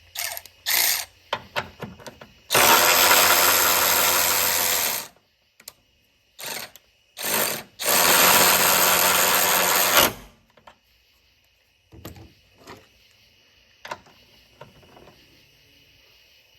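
DeWalt DCF500 12-volt cordless ratchet running in two runs of about two and a half seconds each, with short trigger blips between them. Scattered light clicks follow near the end.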